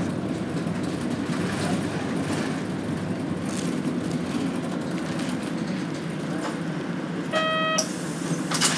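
Interior running noise of a Nishitetsu city bus: a steady low drone of engine and road. About seven seconds in, a short electronic chime sounds for about half a second, followed near the end by brief clattering noises.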